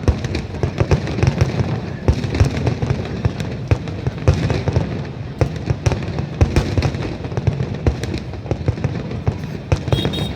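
Aerial fireworks display: a continuous barrage of shells bursting, with rapid overlapping bangs, pops and crackles over a low rumble.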